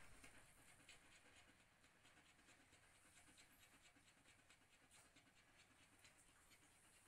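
Faint, quick panting of a large German shepherd-type dog lying down with its mouth open.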